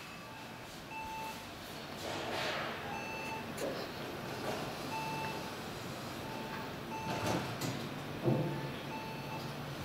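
Repeated short electronic beeps, each a single steady tone, sounding roughly once a second at slightly uneven spacing over a steady hum of room noise. A dull thump comes near the end.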